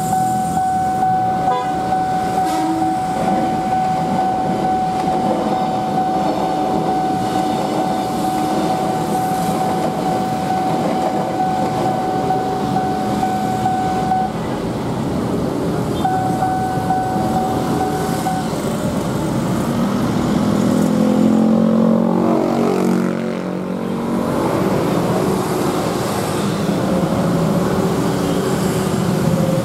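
Level-crossing warning alarm sounding one steady electronic tone. It cuts off about halfway through, sounds again for about two seconds, and is followed by the engines of waiting motorcycles and cars revving up and pulling away.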